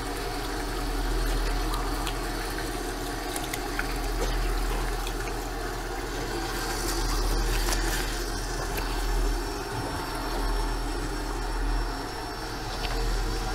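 Tap water running steadily into a sink as a hand is rinsed under it, over a low rumble that swells and fades several times.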